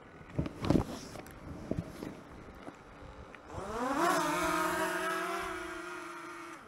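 A few sharp knocks, then about three and a half seconds in a small drone's motors spin up: the Autel Evo Nano+ propellers rise in a whine, then settle into a steady buzz that slowly fades.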